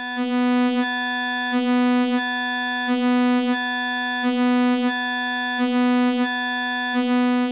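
Animoog Z wavetable synthesizer holding one steady sawtooth-like note while its tone brightens and dulls in a regular cycle, about every second and a half, as it morphs through its timbres, most of them a static fat saw.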